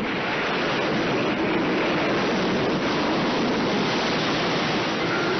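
Ocean surf: large waves breaking in a steady, dense wash of noise.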